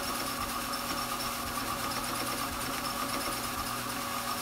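Strauch Mad Batt'r electric drum carder running steadily: an even motor sound with a few constant tones.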